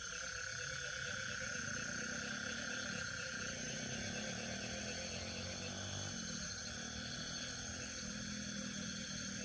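Nighttime chorus of insects such as crickets, a steady layered high-pitched trilling, with a softer low hum beneath it.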